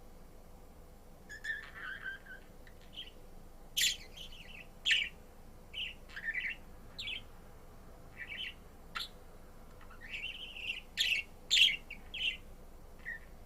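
Pet budgerigar (yellow harlequin) chirping and warbling in a run of short, irregular calls, with a few sharper, louder chirps.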